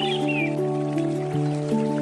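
Soft handpan music: overlapping ringing notes that change step by step over a steady low note. Under it runs the steady hiss of a flowing river, and a short bird chirp comes near the start.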